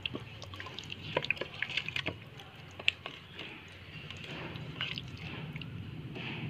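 A hand squishing and mixing raw chicken pieces in a thick, wet coconut-milk and spice marinade. Irregular wet squelches and clicks, thickest in the first two seconds, with one sharper click about three seconds in.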